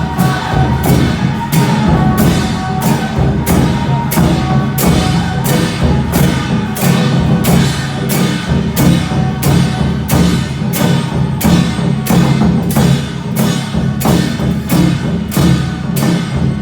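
Procession percussion music: evenly spaced metallic strokes, about two a second, over a dense drum layer, with a few held melody notes early on.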